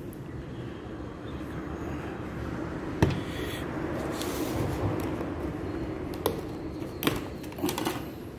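Small knocks and clicks of things being handled on a tabletop tray, one sharp knock about three seconds in and a few lighter ones near the end, over a steady low background rumble.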